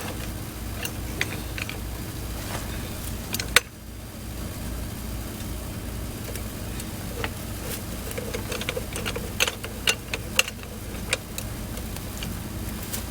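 Scattered clicks and light taps from a jack and hand tools being set and worked, with one sharper knock about three and a half seconds in, over a steady low hum.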